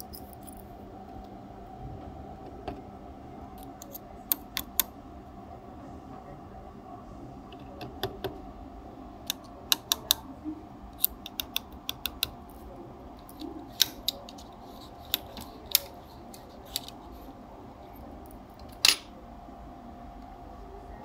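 Irregular small sharp clicks and taps of a screwdriver and fingers handling the metal chassis of a CD player's laser mechanism. They start about four seconds in, scattered singly and in quick pairs, the loudest near the end, over a faint steady hum.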